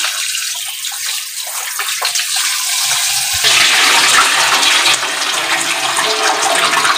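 Running water as raw chicken is washed. The rush of water becomes fuller and louder about halfway through.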